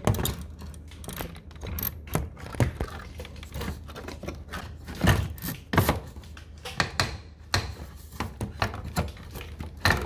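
Irregular plastic knocks and clicks as the blower wheel of a Daikin i-Smile wall-mounted air conditioner is handled and fitted back onto the fan motor shaft. The loudest knocks come about five and six seconds in.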